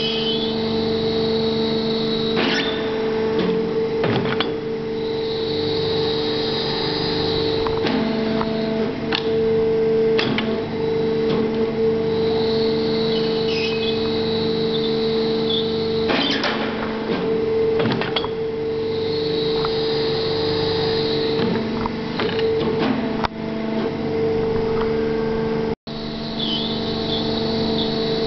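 CNC rotary-draw bending machine running with a steady hum. A higher whine rises for about two seconds roughly every seven seconds as it goes through its bending cycles, with occasional metallic clanks from the clamp and die on the steel bar.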